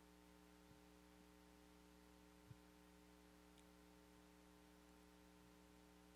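Near silence: a steady low electrical hum, with one faint thump about two and a half seconds in.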